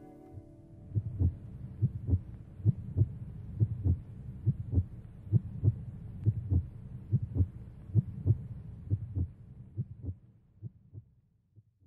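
Heartbeat sound effect: paired low thumps, a little more than one beat a second, starting about a second in as the last of the brass music dies away and fading out near the end.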